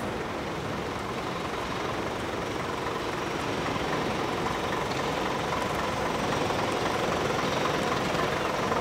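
Steady city traffic noise of passing vehicles, growing slightly louder toward the end.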